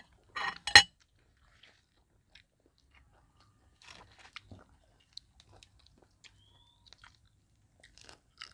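Eating crisp fried rat: a loud crackly double crunch about half a second in as a crispy piece is broken or bitten. After it come faint crunching and wet chewing clicks, with more chewing near the end.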